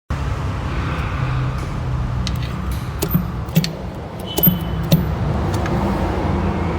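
Car engine running with a steady low rumble, said to have a knocking noise. A handful of sharp clicks at uneven spacing come through in the middle.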